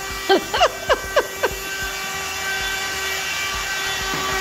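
Handheld cordless vacuum cleaner running steadily with a constant whine. A few short, falling vocal exclamations sound over it in the first second and a half.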